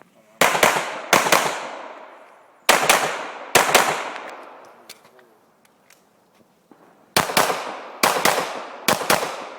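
Pistol fired in quick double taps during an action pistol stage: about seven pairs of shots, four pairs, a pause of about three seconds, then three more. Each shot echoes and dies away over about a second.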